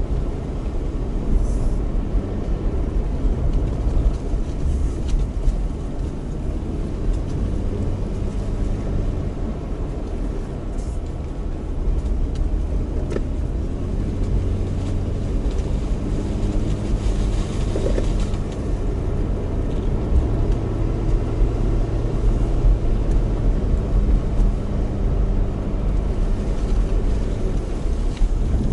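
Car engine and tyre noise heard from inside the cabin: a steady low hum as the car pulls slowly uphill with its 4-speed automatic held in second gear, with a few faint ticks from the road.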